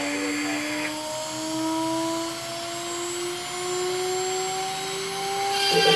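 CNC router spindle motor whining, its pitch rising slowly and steadily as it spins up. Near the end the end mill starts cutting into the board with a louder, rough rattle.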